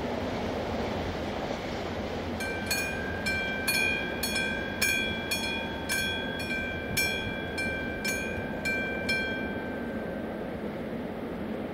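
Electronic warning bell of an AŽD 97 level crossing ringing in regular strikes, about two to three a second. It starts about two seconds in and stops near the end while the barriers rise, a sign that the crossing is clearing after the train. Underneath is the steady rumble of the departing train.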